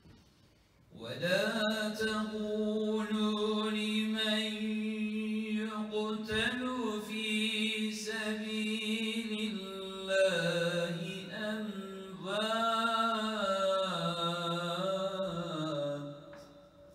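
Solo male voice chanting an unaccompanied Islamic religious chant in long, ornamented, melismatic phrases, starting about a second in and dying away near the end.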